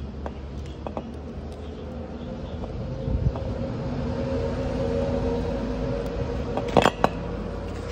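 A motor hum with two steady tones that grows louder toward the middle and then eases off. A couple of sharp metallic clicks come near the end.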